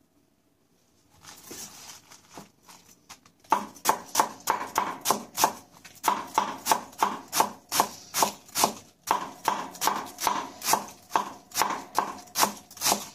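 Kitchen knife chopping food on a cutting board: a few light cuts, then from about three and a half seconds in a steady run of sharp chops, about three a second.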